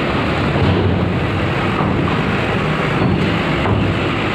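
Steady, heavy rumble of a large coach bus's diesel engine as it drives up a steel ferry loading ramp.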